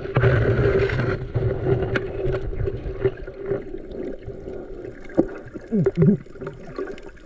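A boat's engine running steadily, a constant hum under sloshing and splashing water, loudest in the first second.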